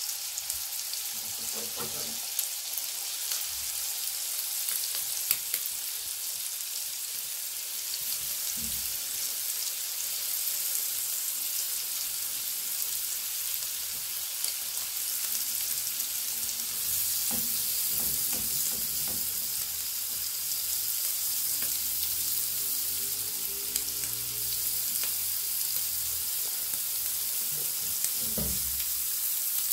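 Thin chicken breast slices sizzling steadily in butter and olive oil in a frying pan, with a few soft knocks as more slices are laid into the pan.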